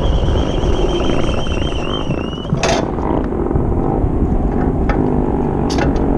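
Vehicle engines running with a heavy low rumble. A high steady whine wavers and stops about two and a half seconds in, and two sharp knocks sound, one just after the whine stops and one near the end.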